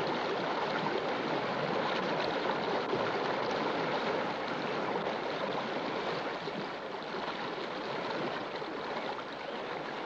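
Steady rushing water, as of a forest stream, running without a break and easing slightly in level partway through.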